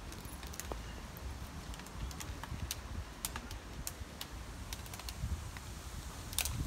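Scattered light clicks and ticks at an uneven pace, several a second, over a steady low rumble of outdoor background; the sharpest click comes near the end.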